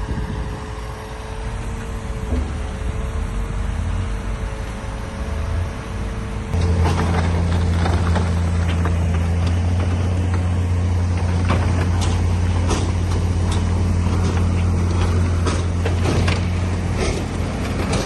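Heavy diesel earthmoving machinery running. About six and a half seconds in, the sound switches abruptly to a louder, deep, steady engine drone with scattered knocks and clanks.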